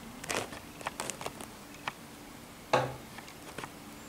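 Handling noise from a small handheld camera held close to the face: scattered light clicks and rustles, with one louder knock a little under three seconds in.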